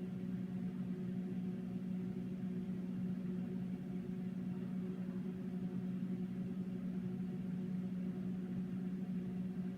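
Microwave oven running with a steady, unchanging hum while it heats a hard candy.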